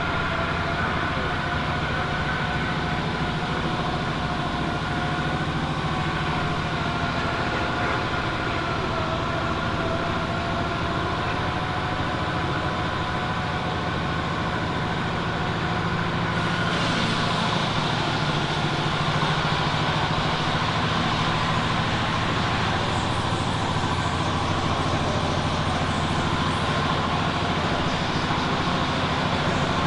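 An engine running steadily, getting a little louder and brighter about halfway through.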